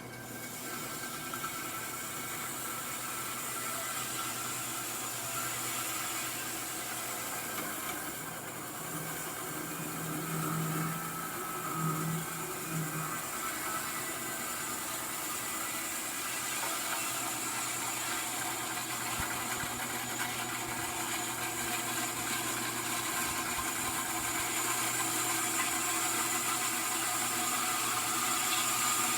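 Homemade band sawmill, driven by an old motor, running steadily as its blade cuts through a log. The sound builds slowly louder over the cut.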